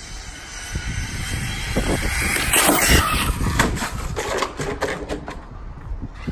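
Arrma Typhon radio-controlled car, with a brushless electric motor, driving on the street: a rushing noise builds to its loudest about three seconds in, then a quick run of sharp clicks and rattles for about a second and a half before it fades.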